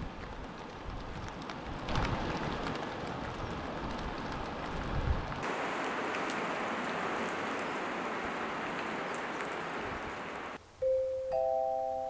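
A steady rushing outdoor noise that changes in tone abruptly about five seconds in. Near the end, soft music begins with sustained, bell-like mallet-percussion notes.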